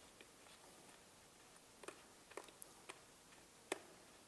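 Near silence with about five faint, sharp clicks in the second half: the metal centre bolt of a 2018 Yamaha YZ250F's air filter being turned by a gloved hand as the filter is fastened back into the airbox.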